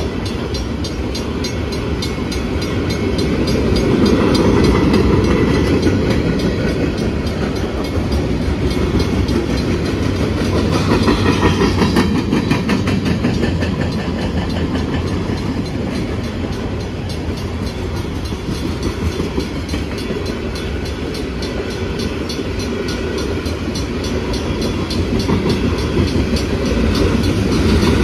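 Freight train of open-top hopper and gondola cars rolling past: a steady heavy rumble with the rhythmic clatter of wheels over rail joints, swelling now and then.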